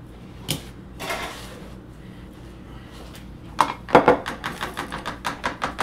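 Seasoning ground meat in a ceramic bowl: a single knock, a short shake from a salt canister, then from about three and a half seconds in a quick run of sharp clicks, about five a second.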